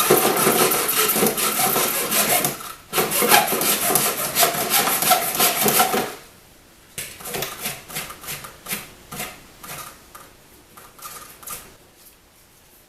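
Hand filing and scraping away at the broken glove box latch piece, reshaping it so it can take a metal insert. It starts with fast, dense rasping strokes, has a short break about three seconds in, then goes on as lighter, separate strokes that fade out.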